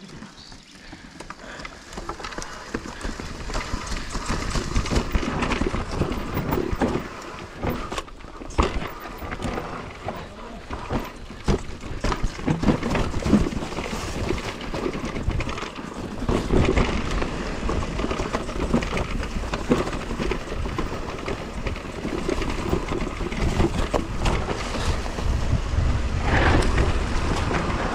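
Electric mountain bike ridden along a dirt forest trail: tyres rolling and the bike rattling over bumps, with wind rumbling on the handlebar-mounted microphone, the noise rising and falling unevenly.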